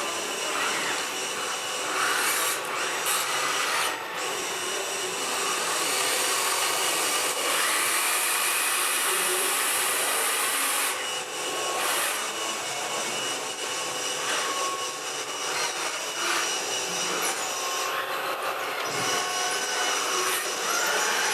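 Small electric motors and gearboxes of radio-controlled model trucks and construction machines whirring steadily, with a rough rubbing, rasping noise over them.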